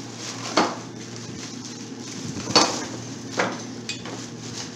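Metal adapter pieces of a 10-ton Porta Power hydraulic jack kit clinking and knocking together as they are handled, four separate knocks with the loudest about two and a half seconds in.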